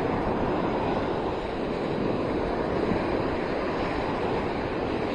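Gulf surf washing onto the beach in a steady rush, with wind on the microphone.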